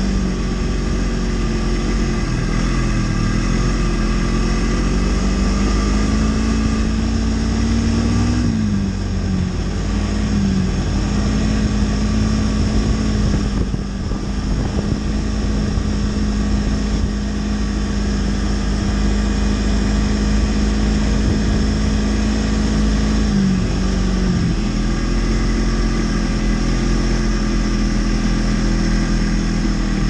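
Snowmobile engine running steadily while riding. Its note dips briefly and picks up again three times, a few seconds in, about a third of the way through, and near the end.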